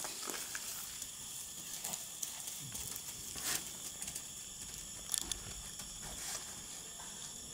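Male alpacas chasing and grappling on a packed dirt path: short scuffing and padded footfalls with a few brief hissing noises, over a steady high-pitched insect drone.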